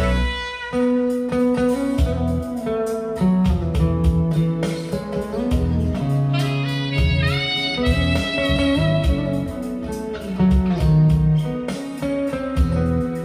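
Guitar-led recorded music with a bass line, played back through a pair of TDL RTL3 floor-standing speakers. The guitar notes bend in pitch about seven seconds in.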